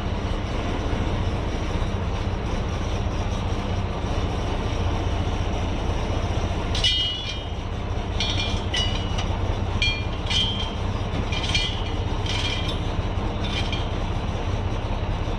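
Heavy diesel engine running steadily. From about halfway in comes a string of about eight short, high-pitched metallic squeaks and clinks.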